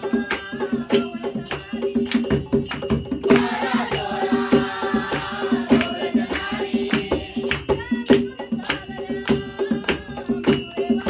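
Devotional group singing with sharp percussion keeping a steady beat and a steady low drone. The voices are loudest for a few seconds in the middle.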